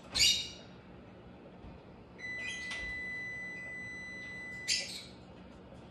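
An oven timer alarm sounds one steady, high beep for about two and a half seconds, starting about two seconds in: the oven has preheated and is ready. Short, sharp high-pitched sounds come around it, the loudest just after the start.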